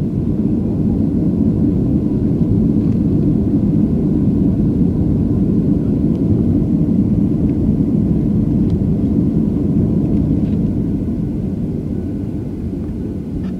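Boeing 737 heard from inside the cabin while it rolls on the ground: the jet engines and wheels make a steady low rumble that eases slightly near the end, with a few faint ticks.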